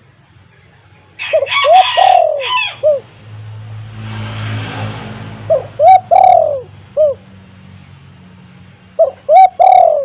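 Spotted dove (tekukur) cooing loudly in three repeated phrases, each a quick run of about four low, arching coos with a longer note in the middle. A low rushing noise swells and fades between the first and second phrases.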